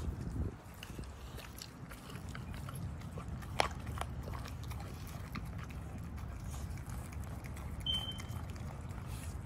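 Pit bulls licking and nosing at scraps on a concrete driveway, with scattered small clicks over a steady low rumble of wind on the microphone. There is one sharper click about a third of the way in, and a brief high squeak near the end.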